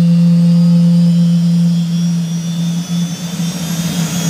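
Jet engine sound: a strong steady low hum under a faint high whine that slowly rises in pitch.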